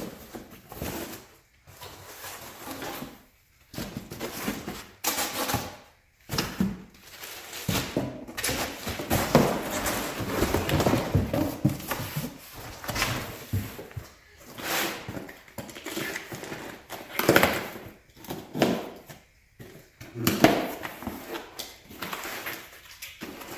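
Chair parts and packing material being handled and pulled out of a cardboard box: irregular rustling, scraping and light knocks, with short pauses between them.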